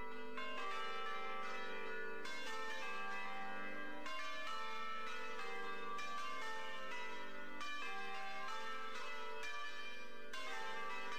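Church bells ringing, several bells struck one after another in an irregular sequence, their ringing tones overlapping at a steady level.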